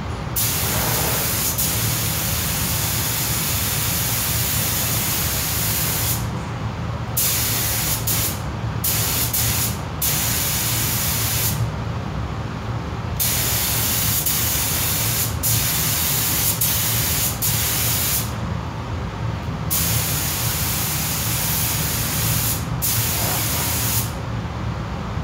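Pneumatic paint spray gun spraying a coat, a hiss in long passes broken by several short pauses where the trigger is released, over a steady low hum.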